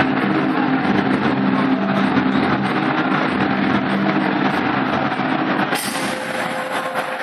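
Stadium crowd roaring, a dense wall of voices with some steady droning notes running through it. About six seconds in, the sound brightens as loud music starts over the stadium loudspeakers.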